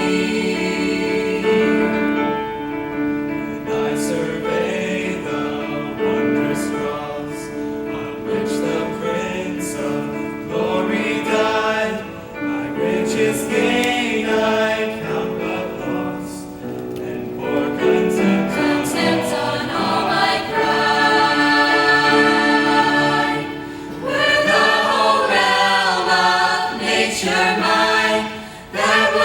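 Church choir singing a hymn, with sustained held chords.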